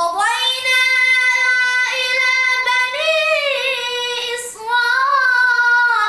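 A boy's high voice reciting the Quran in melodic tilawat style, holding long drawn-out notes with wavering ornaments on them.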